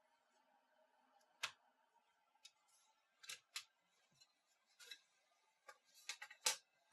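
Scattered small clicks and taps from handling a laptop and small tools, about ten of them at irregular spacing, the loudest near the end.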